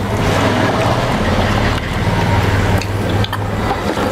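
A steady rushing noise over a low hum that lasts about four seconds and then fades.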